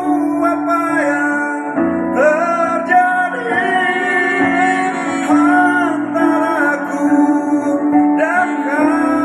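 Live song performance amplified through PA speakers: a man singing a slow ballad into a microphone, with women's voices, over a steady instrumental backing of sustained chords.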